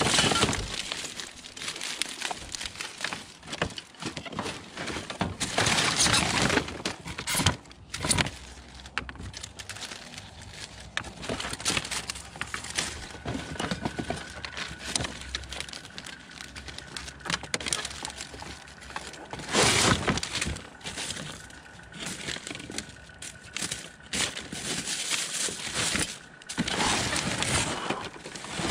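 Scrap and debris being rummaged through in a dumpster: irregular clattering, knocks and crinkling of loose material being handled and moved. A faint steady high tone comes in about halfway through.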